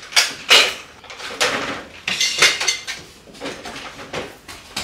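Household items being handled and set down: a string of irregular clatters and knocks, several in quick succession.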